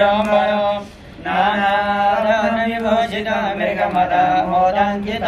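A man's voice chanting Sanskrit mantras in a held, sing-song recitation, breaking off briefly about a second in and then continuing.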